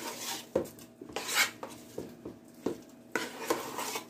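Metal spoon stirring salt through fresh cheese curds in a metal pot, with irregular scrapes and clinks against the pot's sides.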